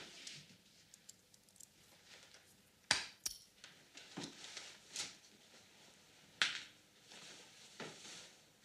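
Handling noises of someone packing a bag from a dresser drawer: scattered clinks, knocks and cloth rustles, the sharpest a pair of clicks about three seconds in, with a jacket swung on near the end.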